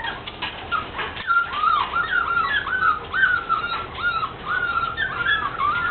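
Golden retriever puppies whimpering: a steady string of short, high-pitched cries that rise and fall, about two a second.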